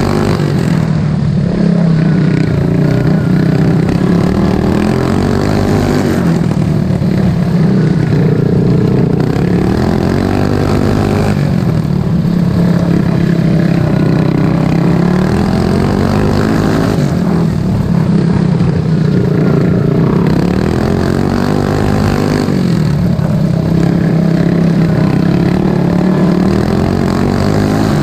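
Racing lawn mower engine at high revs, heard from the driver's seat, its pitch dropping and climbing again every few seconds as the throttle comes off and back on through the turns.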